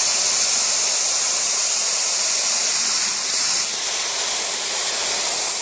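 Pneumatic spray-sealant cartridge gun spraying MS-polymer seam sealant at its minimum air and material settings: a steady hiss of compressed air atomising the sealant through the nozzle. The hiss eases slightly about two-thirds of the way through.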